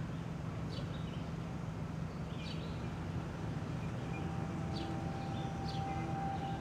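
Outdoor street ambience: a steady low rumble with short bird chirps now and then. A steady held tone comes in about four seconds in.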